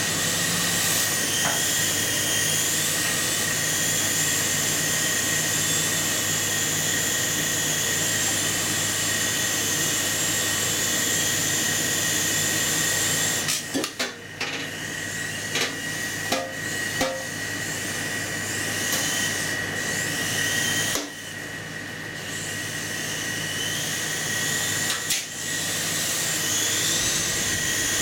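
Micro RC helicopter's small electric motor and rotors whining steadily at high pitch, enclosed in a microwave oven's metal cavity. About halfway through the whine falters and dips several times, with a few sharp knocks, then rises back to a steady whine.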